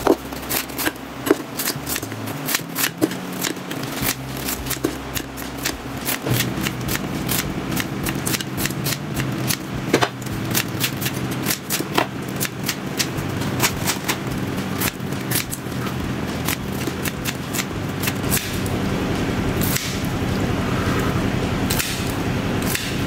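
Knife chopping freshly fried, flour-coated tilapia into cubes on a cutting board: a run of irregular sharp knocks over a steady low hum.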